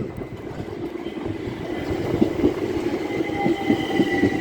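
Class 375 Electrostar electric multiple unit coming in, growing slowly louder, with a steady high electric whine and irregular clicks from the wheels on the track.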